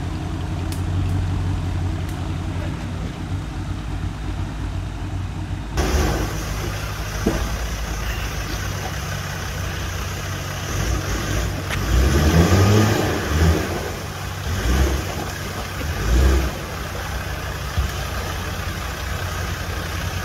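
Off-road 4x4's engine running steadily, then revved: one rising rev about twelve seconds in, followed by a few shorter bursts.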